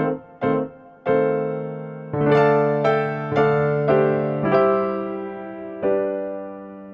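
Background music: an electric piano playing a slow melody of single struck notes, each ringing and fading, with the last note held and dying away near the end.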